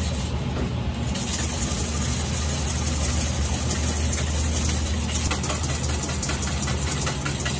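Steady low hum of restaurant kitchen equipment, with a hiss and many light clicks and clinks from about a second in as the cook works at the stainless-steel bowls.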